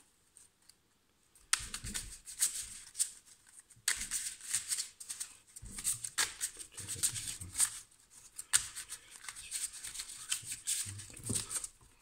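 A deck of tarot cards being shuffled by hand: a quick, continuous run of papery slaps and rustles as the cards are worked from hand to hand, starting about a second and a half in, with brief pauses near four and eight and a half seconds.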